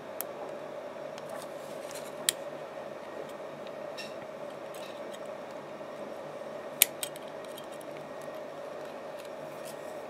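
Faint ticks and two sharp clicks from a bare remote-control circuit board and its crocodile clip leads being handled, the louder click past the middle, over a steady background hum.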